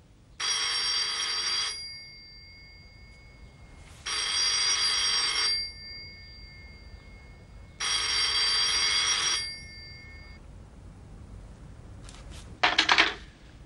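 Rotary-dial telephone's bell ringing three times, each ring about a second and a half with about two seconds between, the call going unanswered. Near the end a brief loud clatter.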